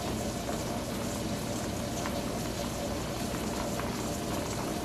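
Pressure canner heating on the stove, giving a steady boiling hiss as it comes up to pressure at about 8 to 9 pounds, before the weighted jiggler starts to rock.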